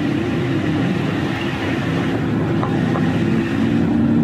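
Small car driving, a steady mix of engine hum and road noise that cuts off suddenly at the end.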